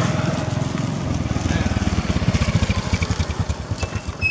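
A small engine running, a rapid low beat that slows toward the end, with a short high squeak near the end.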